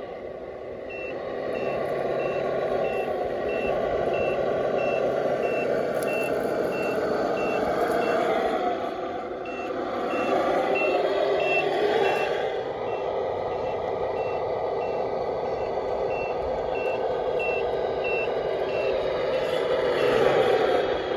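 Tamiya RC dump truck's electronic reversing beeper, beeping steadily about twice a second as the truck backs up, over the steady whir of its motor and gears.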